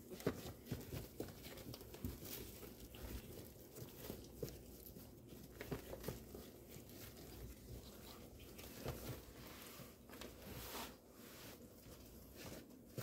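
Faint, scattered scratching and rustling of chihuahua puppies crawling over a puppy pad in a plastic tub.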